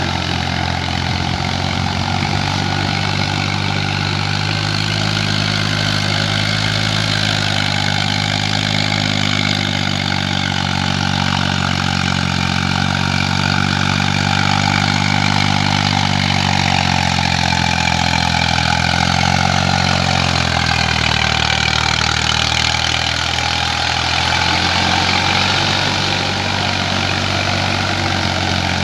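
Eicher 480 tractor's diesel engine running steadily under load while it drives a rotary tiller through wet paddy mud. The engine note dips slightly about two-thirds of the way through, then steadies again.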